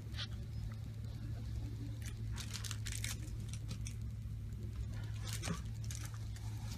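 Faint scattered rustling and handling noises over a steady low hum of room tone.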